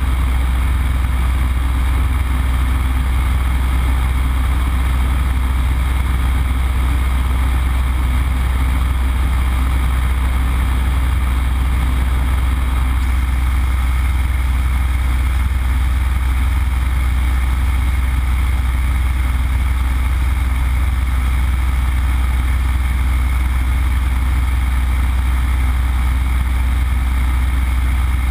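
Yak-52's Vedeneyev M-14P nine-cylinder radial engine running steadily in flight, heard from inside the cockpit as a loud, steady low drone.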